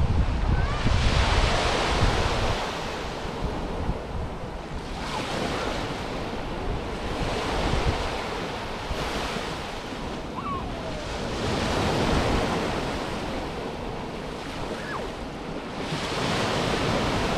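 Small Mediterranean waves breaking and washing up a sandy beach, the surf swelling and fading about every three to four seconds. Wind buffets the microphone in the first couple of seconds.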